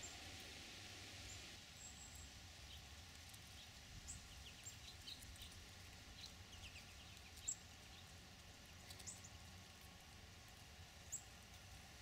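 Quiet outdoor background with faint, scattered short high-pitched bird chirps, a few of them a little sharper and louder.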